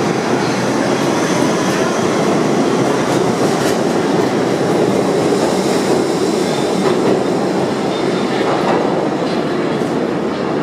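R62A subway train pulling out of the station, a loud, steady rumble of wheels on rail with a few clacks over the rail joints.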